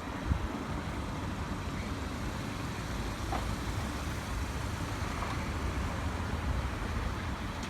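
Steady city street traffic noise of passing cars, with wind rumbling low on the microphone.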